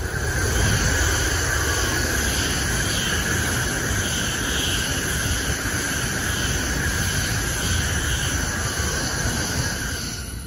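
N700-family Tokaido Shinkansen train passing at about 150 km/h: a steady rush of wheel and air noise with a high whine over it and a faint pulsing about twice a second as the cars go by. It fades away near the end.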